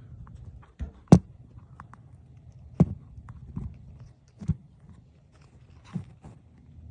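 Irregular clicks and knocks of hand work, things being moved and set down, about six in all, the loudest a sharp knock about a second in. A faint low hum runs underneath.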